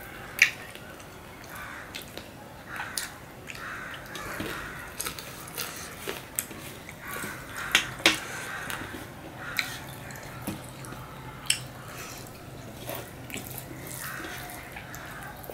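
Fingers mixing and squeezing rice with chicken curry on a stainless steel plate, with wet squishing and irregular sharp little clicks of fingers and food against the metal, along with mouth sounds of eating.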